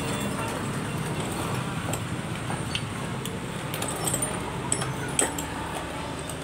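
Light metallic clinks and clicks as the parts of a partly dismantled Yamaha Fino scooter engine are handled and the top end is lifted off by hand, over a steady low background hum.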